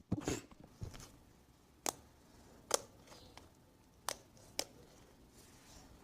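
Homemade fluffy slime being squeezed and pulled in the hands, giving about six short, sharp pops and clicks spaced a second or so apart.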